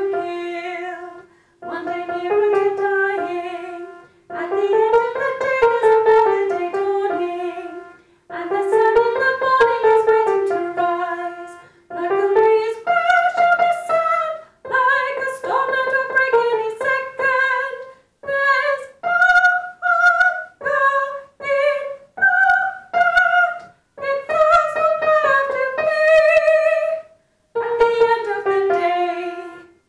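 A woman sings a soprano choir line in phrases separated by short breaths, with a piano playing along under her voice. The notes become shorter and more detached in the second half.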